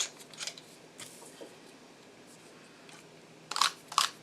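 Small clicks and handling noise from the plastic parts of a Line 6 handheld microphone being reassembled, with a quick run of sharp clicks near the end as the microphone module is fitted back on.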